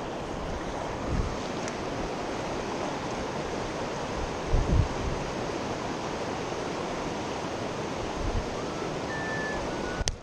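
Steady rush of a mountain river's flowing water. There are a couple of low wind buffets on the microphone and a sharp click near the end.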